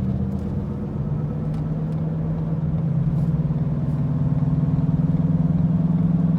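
Worn front driver-side wheel bearing on a 2014 Ford Escape droning at highway speed, a low pulsing hum like a helicopter over the car's road noise, growing louder about four seconds in. A mechanic diagnosed it as the wheel bearing.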